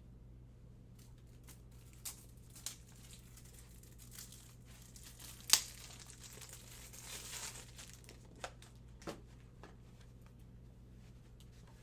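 Trading-card pack wrapper being torn open and crinkled, with scattered sharp clicks of cards and packaging being handled. The loudest is a single sharp snap about five and a half seconds in.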